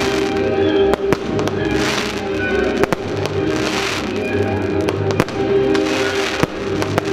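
Fireworks display set to music: sharp shell reports about once a second and repeated rushes of hissing noise from rising comets and bursting stars, over a steady music track.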